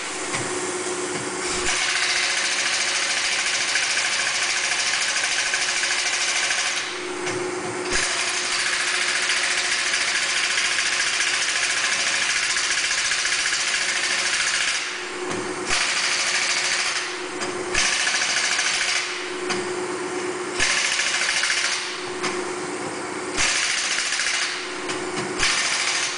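Air tool in a truck tyre shop running in bursts, a harsh mechanical rattle: two long runs of several seconds, then a string of short bursts about a second each. A steady motor hum carries on in the gaps.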